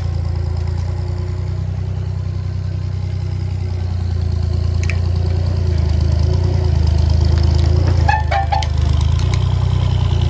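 Road roller's engine running with a steady low drone, growing a little louder about four seconds in. A few short sharp cracks or clicks come near the end.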